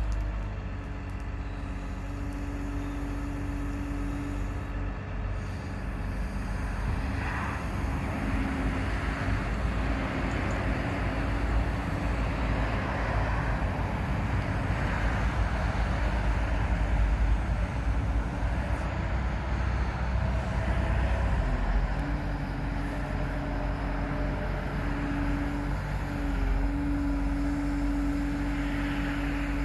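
Caterpillar M316D wheeled excavator's diesel engine running with its hydraulics working as the boom is lowered. The sound grows louder and more rushing through the middle, then settles back to a steadier engine hum near the end.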